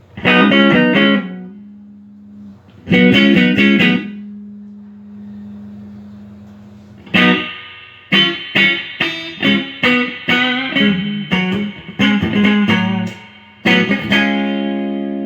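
Electric guitar played through a Fender Champion 30 combo amp being sound-tested after repair: two ringing chords, then from midway a run of short chords about two a second, ending on a held chord.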